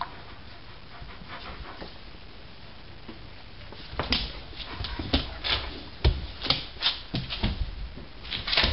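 A Maremma sheepdog and a kitten scuffling on a laminate floor. There is quiet for about four seconds, then a run of short, irregular clicks and thumps as the dog shifts and rolls over.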